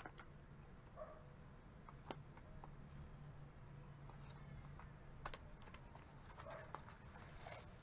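Faint, scattered clicks and light rustles of a small cardboard box being handled and pried open, with a sharper tick about two seconds in and another about five seconds in.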